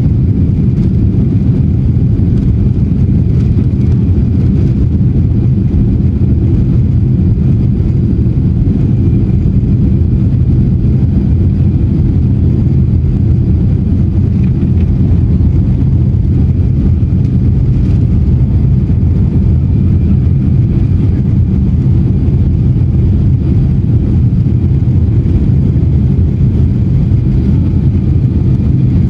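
Boeing 757's jet engines at takeoff thrust together with the rumble of the wheels on the runway, heard from inside the cabin during the takeoff roll. The sound is a loud, steady, deep roar with a faint high whine above it.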